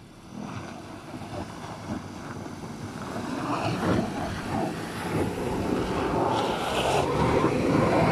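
Škoda Fabia driving slowly over packed snow as it comes up close: engine running and tyres on snow, growing steadily louder and loudest near the end.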